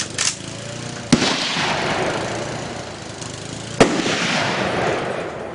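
Two rifle shots about two and a half seconds apart, each followed by a long rolling echo.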